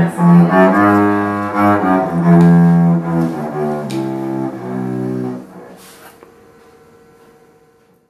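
A low bowed string instrument playing a slow melody of sustained notes. The playing stops about five and a half seconds in and rings away faintly.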